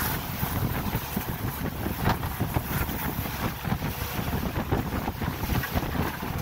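Wind buffeting the microphone on a boat underway, over the rush of the wake and a low rumble.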